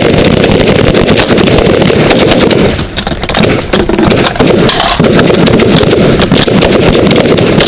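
Many rifles firing along a firing line, shots overlapping into a dense, rapid crackle loud enough to overload the microphone.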